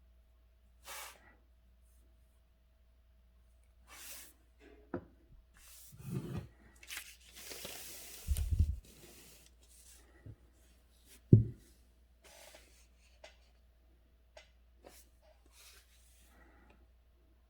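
Paper and brush handling during calligraphy name-writing: scattered short rustles and scrapes of paper, with a low thump about eight seconds in and a sharp knock about eleven seconds in.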